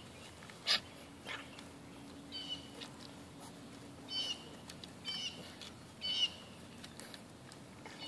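A bird gives short, high chirping calls, four times in the second half. Under them are sharp rustling crackles of a puppy rolling on dry pine needles, the loudest about a second in.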